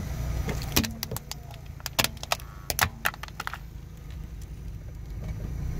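Car creeping slowly on asphalt with a steady low rumble, and a run of sharp clicks and cracks for the first three seconds or so.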